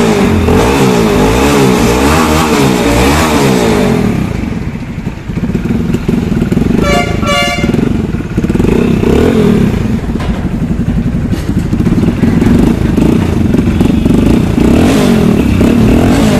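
Hero HF Deluxe BS6 single-cylinder four-stroke engine running through a freshly fitted Yamaha RX100 silencer and being revved up and down repeatedly, a test run for exhaust leaks. A short, choppy horn sounds about seven seconds in.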